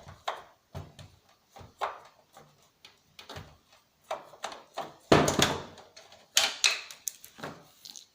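Irregular knocks, clicks and clatter of the plastic case of a CRT TV/DVD combo and tools being handled during disassembly, loudest about five and six and a half seconds in.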